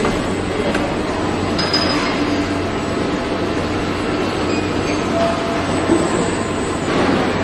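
Car assembly-plant floor noise: a steady mechanical din with a low hum and occasional light metallic clinks.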